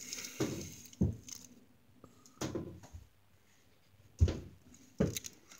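A few short, soft breath and mouth sounds with quiet gaps between them, as a person sucks crushed Rockets candy powder through the opened end of its twisted wrapper and breathes it out as a puff of 'smoke'. A low thump about four seconds in is the loudest sound.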